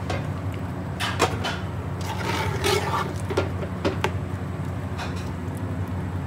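Metal spoon stirring rice and chicken in water in an aluminium pot: the liquid sloshes, with a few light clinks of the spoon against the pot. A steady low hum runs underneath.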